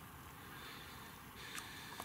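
A flock of geese calling faintly in the distance over a low steady rumble, with one short click a little after halfway.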